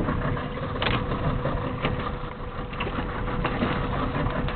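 Fishing boat's motor idling with a steady low rumble, a faint steady tone over it and a few light knocks.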